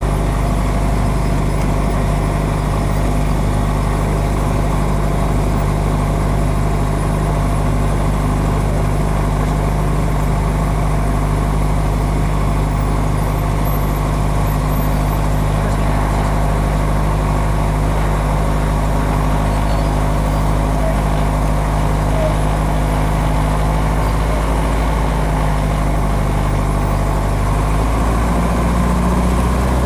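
Cessna 150's Continental O-200 four-cylinder engine and propeller running at low power while taxiing, heard inside the cabin as a steady drone. About two seconds before the end, the pitch rises as the engine speeds up.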